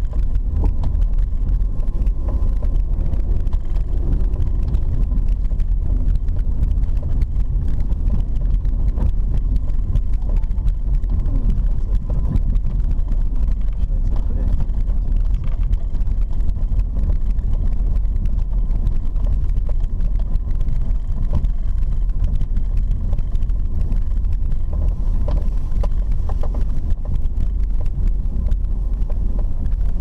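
Road noise inside a car's cabin while driving on a dirt road: a steady low rumble of tyres and engine.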